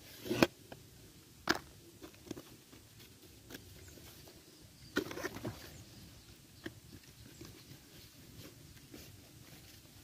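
Scissors cutting corrugated cardboard, a few sharp crunching snips near the start and again about a second and a half in. Then scattered scrapes and taps as the cardboard is handled, with a short cluster of crackling about five seconds in.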